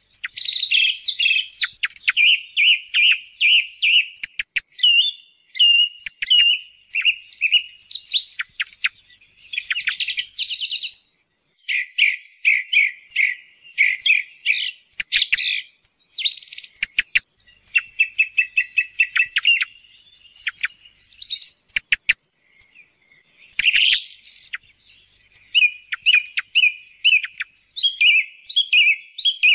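Song thrush singing: a string of varied phrases, many of them a note repeated several times in quick succession, with short pauses between phrases.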